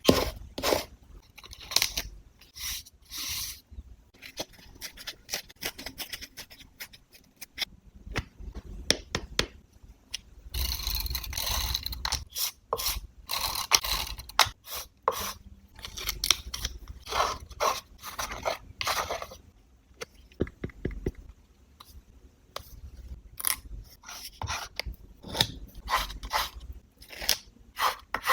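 Close-up paper-crafting sounds from journal collage work: paper and stickers rustling and scraping, with short snips and light taps. About ten seconds in there is a longer, denser stretch of continuous rustling and scraping lasting roughly four seconds.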